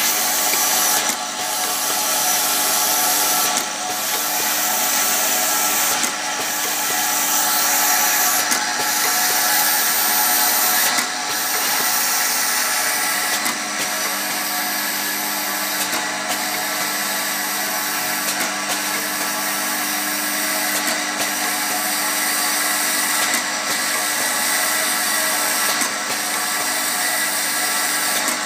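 E-liquid filling and capping machine running: a steady mechanical whir with a short break about every two and a half seconds, in step with its bottle-by-bottle indexing cycle.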